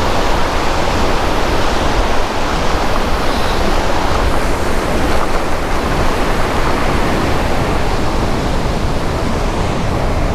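Steady, loud rushing noise with a fluttering rumble underneath.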